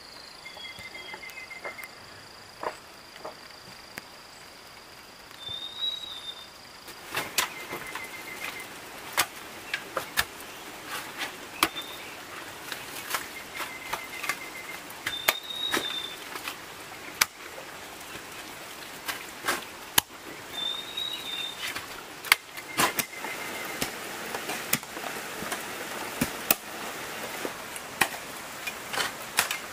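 Irregular sharp knocks and clicks over a bed of outdoor noise, with a bird's short arched chirps and dotted trills recurring every few seconds. A steady high insect-like tone stops about seven seconds in, and the knocks grow busier from then on.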